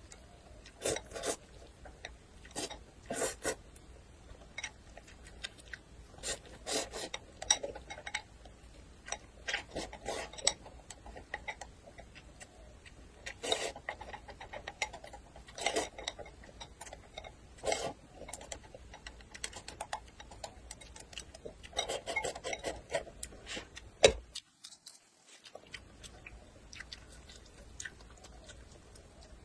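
Close-up eating noises: noodles slurped and chewed from a porcelain bowl, with chopsticks scraping and clicking against the bowl in short, irregular bursts. One sharp click a little before the end is the loudest sound.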